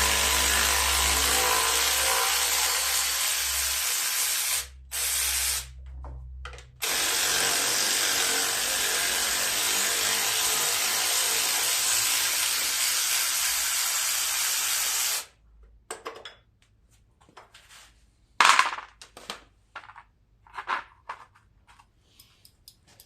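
A power tool runs in steady stretches while it backs out 8 mm bolts: about four seconds, a brief burst, then about eight seconds more. After that come light clicks and rattles of metal parts being handled.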